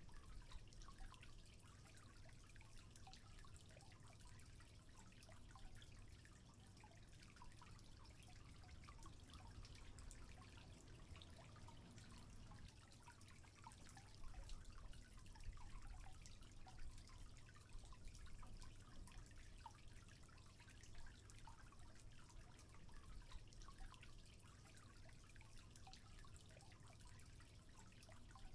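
Faint trickling and dripping water, many small irregular drips over a low steady rumble.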